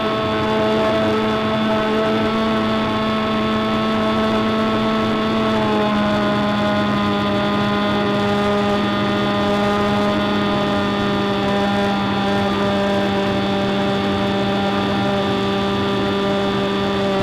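Big Stick 60 RC model airplane's motor and propeller droning steadily in flight, heard through the onboard camera, with a slight drop in pitch about six seconds in.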